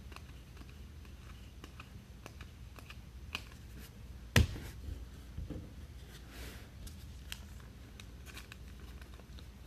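Trading cards being handled and flipped through: soft scattered clicks and rustles, with one louder knock about four and a half seconds in.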